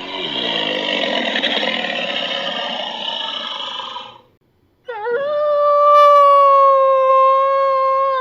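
An alligator's rough, rasping call lasts about four seconds. After a brief pause, a wolf howls one long, steady note.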